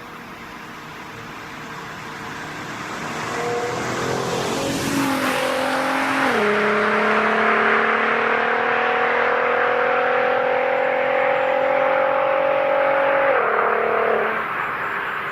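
Audi TT 3.2's VR6 engine with a sports exhaust accelerating hard. It grows louder over the first few seconds, then its note climbs steadily. The pitch drops suddenly about six seconds in and again near the end, as it shifts up.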